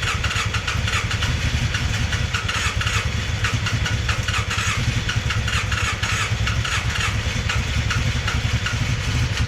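Polaris Sportsman 600 ATV engine, with almost no compression, cranking and sputtering as it struggles to start, a fast uneven pulsing that stops suddenly near the end.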